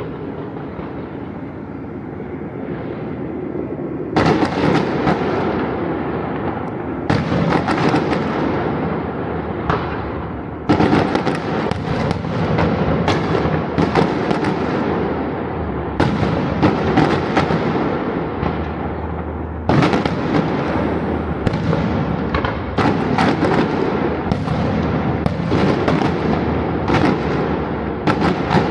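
Fireworks bursting in quick irregular succession, bang after bang with crackling tails overlapping. They begin about four seconds in, after a steady low rumble.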